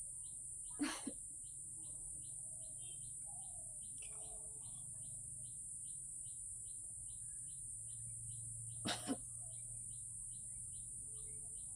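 Short high chirps repeating steadily, about three a second, over a constant high hiss. A brief burst of noise comes about a second in, and a quick double burst near nine seconds; these are the loudest sounds.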